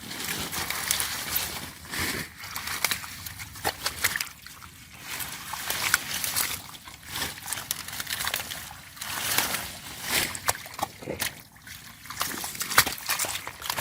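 Shallow water sloshing and splashing in irregular surges with sharp little splats, from a person working by hand in the water.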